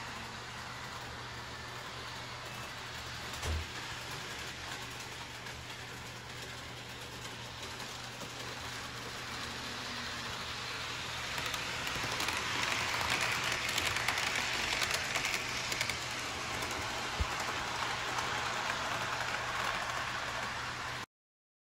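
Two model train locomotives pulling a passenger car running along sectional track: a steady motor hum and wheel-on-rail rolling noise that grows louder in the middle as the train passes nearer, with a single knock a few seconds in. The sound cuts off abruptly near the end.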